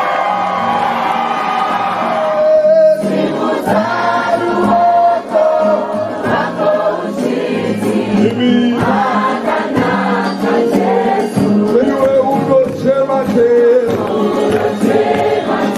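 A choir of voices singing a gospel worship song, with a regular beat underneath.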